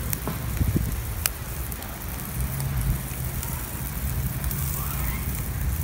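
Bacon sizzling in a wire grill basket over a wood campfire, a steady hiss with a few sharp crackling pops from the fire. A low rumble runs underneath, joined by a steady low hum about halfway through.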